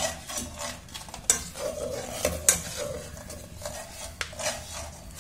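Perforated steel spatula scraping and clinking against a pan as eggs are stirred and scrambled in hot oil, with sizzling underneath. The strokes are irregular, with two sharper knocks, one a little over a second in and one about halfway.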